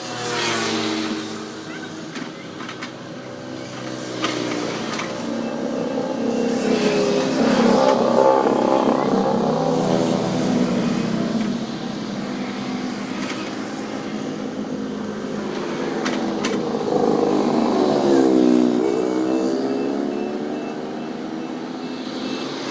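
Heavy diesel engine of a working machine, revving up and down under load, with its pitch swelling and falling twice. A few sharp knocks come near the start.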